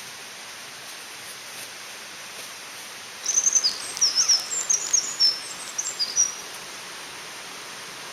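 A small songbird sings a quick run of short, high notes for about three seconds, starting about three seconds in, over the steady rush of a mountain stream.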